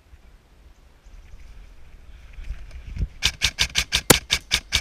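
Novritsch SSR9 gas blowback airsoft pistol firing rapidly: a quick, even string of sharp clacks, about six a second, starting about three seconds in after a stretch of faint rustling.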